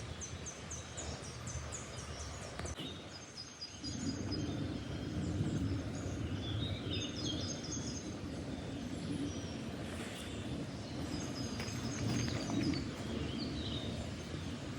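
Songbirds singing and chirping, with a quick run of high descending notes at the start and more short trills throughout. A low steady rumble comes in about four seconds in and stays under the birdsong.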